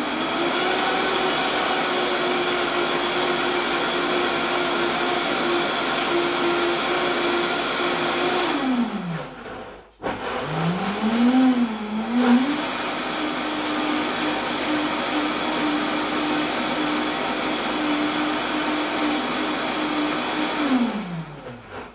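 Countertop blender puréeing thick carrot-top hummus in two runs. The motor spins up, runs steadily for about eight seconds and winds down to a stop. It starts again, wavers briefly as it comes up to speed, runs steadily for another eight seconds or so, then winds down near the end.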